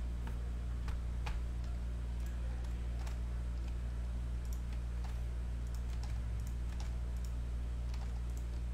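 Faint, irregular computer keyboard clicks over a steady low hum.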